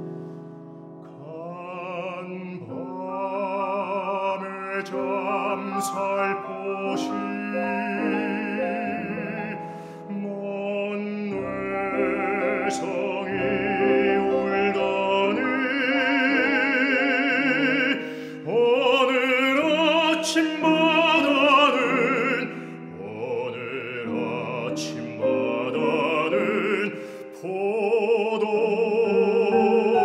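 Baritone singing a Korean art song in operatic style with a wide vibrato, accompanied by piano.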